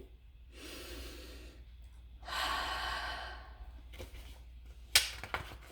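A woman taking a slow, deep breath in, then breathing it out more loudly for about a second and a half. A single sharp click follows about five seconds in.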